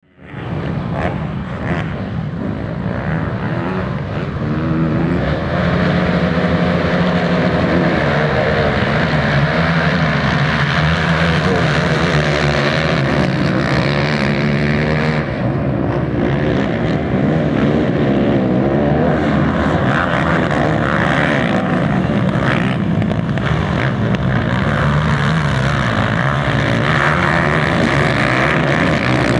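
Several racing quad (ATV) engines revving up and down together as they race, their pitches overlapping and shifting. The sound grows louder about five seconds in.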